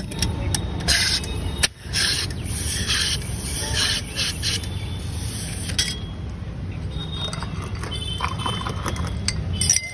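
Soda water hissing out of a pressurised stainless-steel soda cylinder into glasses for about five seconds, over a steady low rumble of street traffic. A few light glass clinks come near the end.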